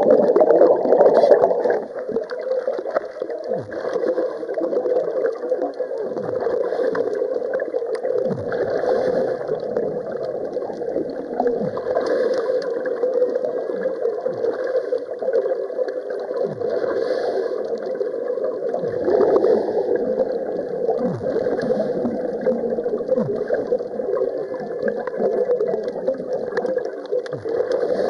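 Muffled underwater ambience: a steady hum with gurgling bubbles and short downward-sliding sounds every couple of seconds.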